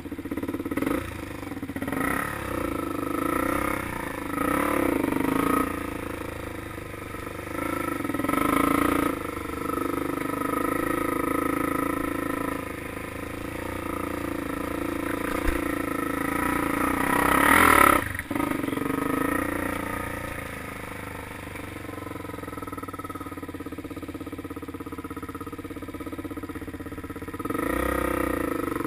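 Off-road vehicle engine revving up and easing off again and again as it is ridden over a dirt trail. It is loudest in a long rise about two-thirds of the way through, which cuts off suddenly, then runs more steadily before picking up again near the end.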